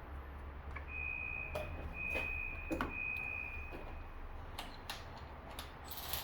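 Ratchet and socket clicking and knocking against the engine while a spark plug is screwed in and tightened, with a thin high squeak lasting about three seconds partway through.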